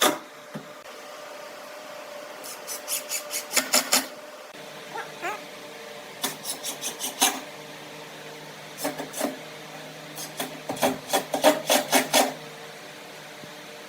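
A hand tool worked over wood in several short bursts of quick repeated strokes, about four a second, with pauses between the bursts, over a faint steady hum.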